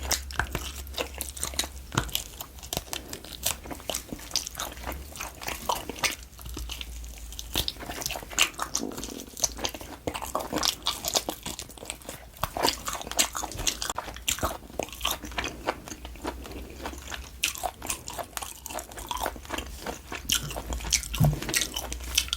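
Close-miked chewing and biting of grilled LA galbi beef short ribs: a dense, irregular run of wet, crunchy mouth clicks and smacks, over a steady low hum.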